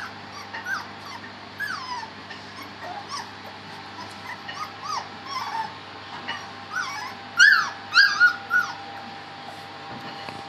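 Three-week-old Dalmatian puppies whimpering in many short, high, falling squeaks, with a louder run of yelps about three quarters of the way through.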